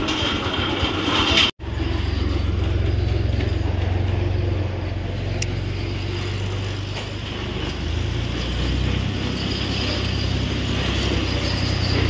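Engine of road-construction machinery running steadily with a low hum, starting abruptly about a second and a half in; its pitch shifts slightly about eight seconds in.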